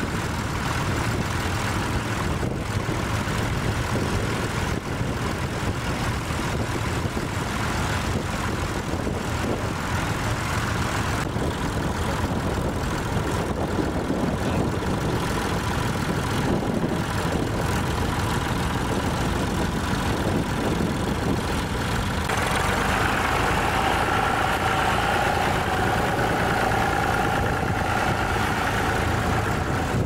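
Vintage tractor engines running steadily while ploughing, a low, even drone. About two-thirds through a different engine takes over, with a steady higher-pitched note.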